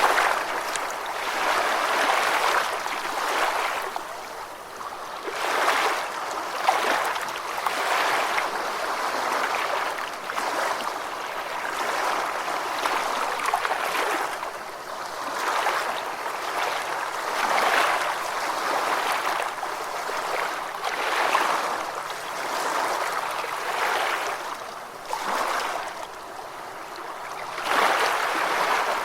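Gentle ocean waves washing in, a soft hiss that swells and falls back every few seconds.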